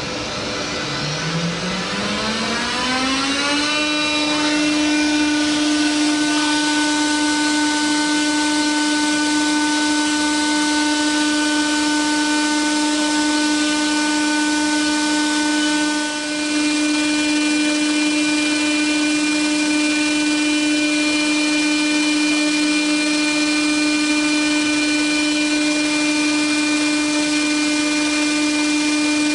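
CNC router spindle spinning up with a rising whine over the first few seconds, then holding a steady high whine over the hiss of milling aluminum pipe, with a brief drop about halfway through.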